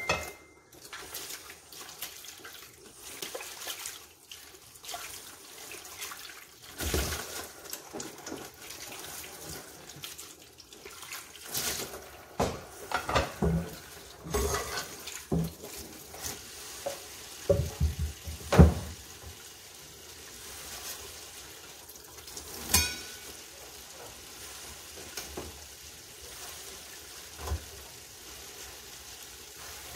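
Water running from a kitchen tap into a pot, with the pot knocking and clattering at intervals and one sharper knock a little past halfway, typical of rinsing rice before cooking it.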